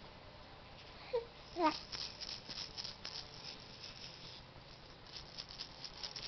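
A two-month-old baby gives two short coos about a second in. Then come two stretches of rapid, light, high clicking from a plastic bead rattle toy being shaken.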